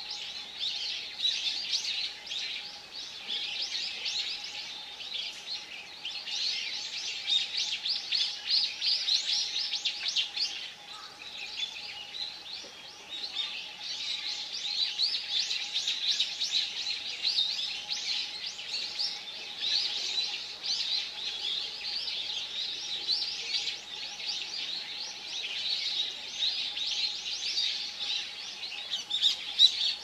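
A dense chorus of many small birds chirping and twittering without pause, high short calls overlapping one another, easing briefly in the middle.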